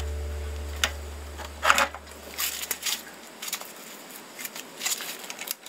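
Scattered metallic clicks, clinks and short scrapes of a hand wrench working on a scooter's rear shock absorber mounting bolt. Low background music fades out over the first three seconds.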